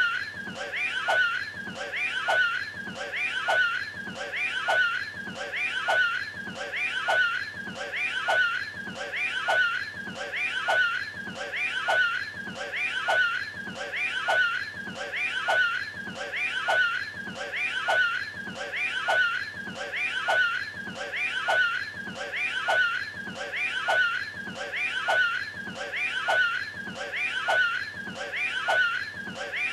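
A short strained vocal noise from the Cat in the Hat, the same clip repeated over and over in a fast, even loop.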